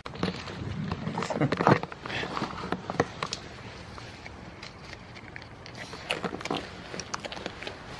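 Goat fur brushing and rubbing against the microphone for the first two seconds, the loudest part, then a goat crunching small dry treats taken from a hand, heard as scattered sharp chewing clicks.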